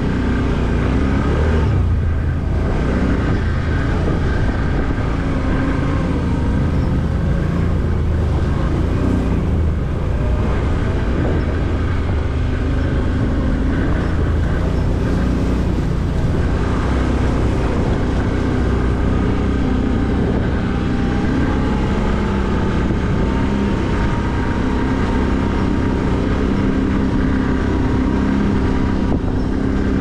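Can-Am ATV engine running steadily under way at low speed, its pitch rising a little in the second half as the quad picks up speed.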